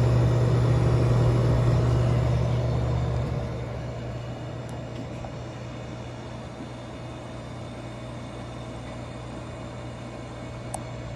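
Vintage 1967 Fedders WeatherWheel window air conditioner running: a steady low hum under a smooth rush of air from its blower. The hum is louder for the first few seconds, then settles about half as loud.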